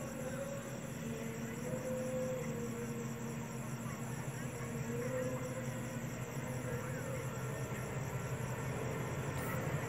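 Diesel locomotive of an approaching train running, a steady low rumble with a wavering hum that grows a little louder. Insects trill in a steady high pulsing buzz over it.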